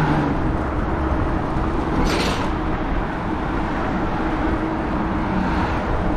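Riding noise from a Lectric XP e-bike under way: steady wind and road rumble with a faint steady hum. A brief hiss comes about two seconds in.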